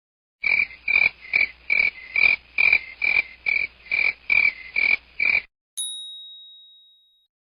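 A frog croaking in a steady rhythm: about a dozen short, evenly spaced croaks, roughly two a second. After the croaks stop, a single bell-like ding rings and fades.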